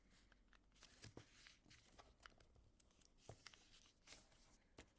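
Faint rustling and soft crisp clicks of a sheet of printer paper being folded in half and creased by hand, as scattered short taps.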